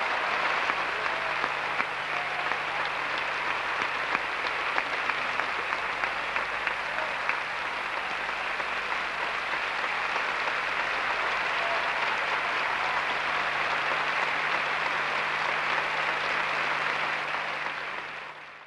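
A large theatre audience applauding steadily, a dense even clatter of many hands clapping, fading out near the end.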